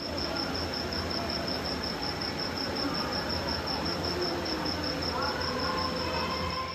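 A cricket chirping steadily, one high, even pulsing note at about six pulses a second, over a low background hum.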